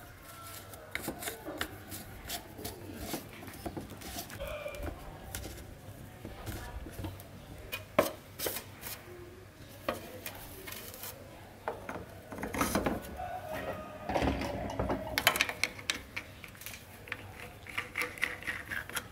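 Clicks, knocks and rubbing of plastic and metal parts being handled and fitted together on an electric fan: the wire grille, hub and clear plastic blade going onto the motor shaft. Irregular handling sounds, with one sharp knock about eight seconds in and a busier run of clatter a few seconds later.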